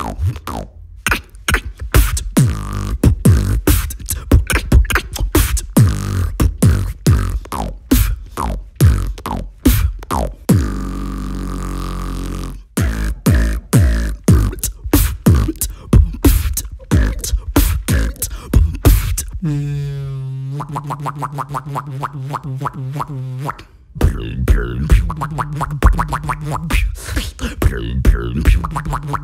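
Beatboxing: one performer's mouth-made percussion in a fast rhythm of kick- and snare-like pops and clicks. About ten seconds in it breaks for a held low bass note of about two seconds. Near twenty seconds in comes a wavering pitched tone that settles into a steady note for a few seconds before the rhythm returns.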